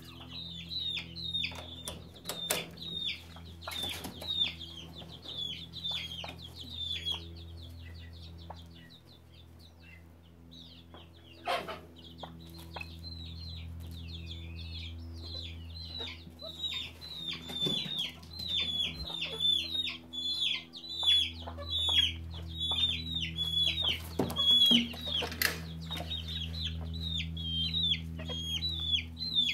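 Young fowl peeping without pause: short, high, downward-sliding peeps several a second, like chicks calling. Underneath runs a steady low hum, and a few sharp knocks stand out, the loudest about three quarters of the way through.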